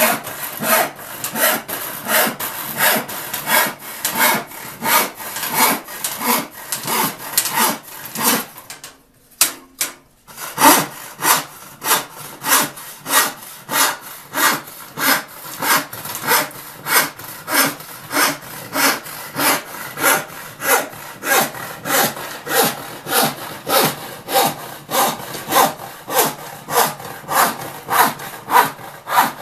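Hand rip saw ripping a wooden board lengthwise with short, even strokes, about two a second. It stops for about a second and a half about nine seconds in, then carries on.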